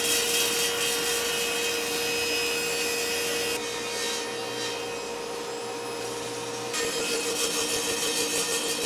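Table saw running and ripping a taper along a walnut leg held in a tapered leg jig: a steady blade whine under the cutting noise. About seven seconds in it gets a little louder and the whine starts to waver.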